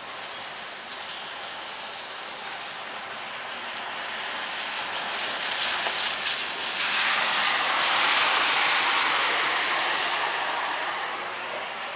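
Steady hiss of rain and running water on a flooded street, with a vehicle's tyres swishing through the floodwater: it swells from about four seconds in, is loudest around eight seconds, and fades near the end.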